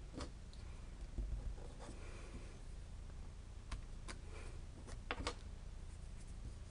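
Light taps and clicks from handling a stamping platform and ink pad: an ink pad dabbed on a clear stamp and the acrylic stamping lid moved. There is a soft low thump about a second in and a quick, louder double tap about five seconds in.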